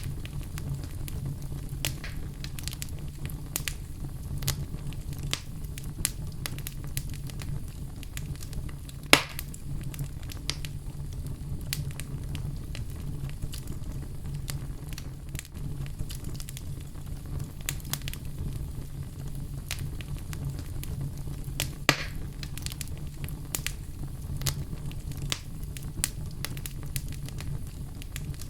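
Wood fire crackling in a fireplace: a steady low rumble under many small snaps and crackles, with two louder pops, one about nine seconds in and one near twenty-two seconds.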